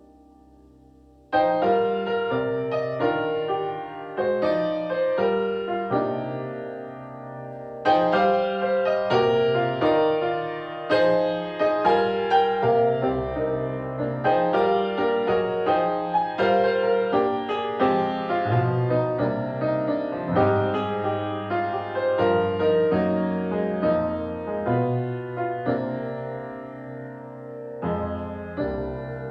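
Piano playing a slow piece of chords and melody notes, each note struck and then fading. The playing comes in about a second in, after a quiet start.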